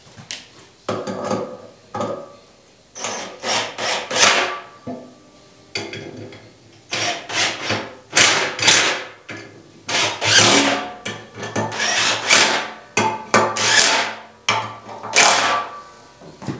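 Irregular hammer blows on the steel frame and slides of a homemade forge press, each strike fading quickly, often coming in twos or threes.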